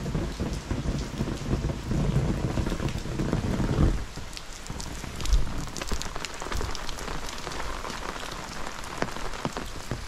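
Heavy rain falling on an umbrella overhead, with many close, sharp drop hits. A low rumble underneath dies away about four seconds in.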